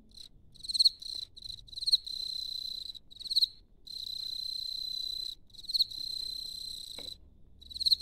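Field cricket chirping, wings rubbed together to make a high, pulsing trill. It gives a few short chirps, then several runs of steady trilling, each one to one and a half seconds long and each opened by a short, louder chirp.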